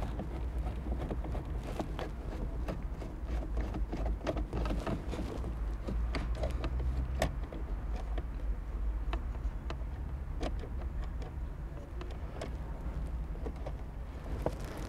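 Small, irregular clicks and scrapes of a long screwdriver working a screw loose deep behind plastic dashboard trim, over a low steady rumble.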